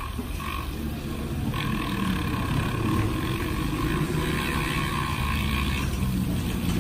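Handheld battery milk frother whirring as it whisks sugar into water in a plastic cup to make sugar syrup, over a louder steady low rumble of road traffic.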